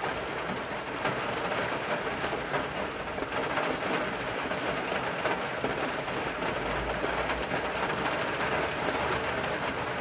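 Steady rain falling on a car's roof and windows, heard from inside the car: a dense, even patter of drops.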